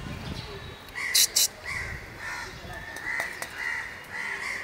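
Crows cawing over and over, starting about a second in. Two sharp clicks come just after the cawing starts and are the loudest sounds.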